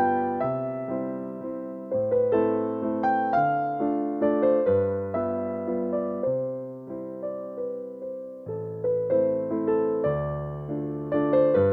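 Background piano music: notes and chords struck about twice a second, each one fading away.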